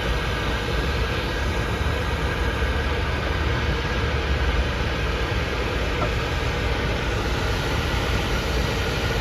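Air conditioner running with a steady whoosh and low hum.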